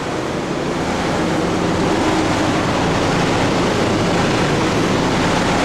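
Steady rushing air noise with a low hum, from a ventilation fan running.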